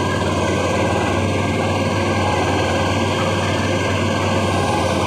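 A boat's engine running steadily, a constant low hum with no change in speed.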